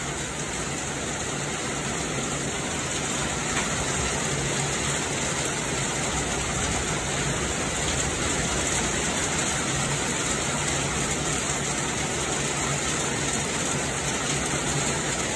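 Heavy rain falling steadily on a bell tent's rain canopy and the wet ground, with water pouring off the canopy edge. It builds a little in the first few seconds, then holds steady.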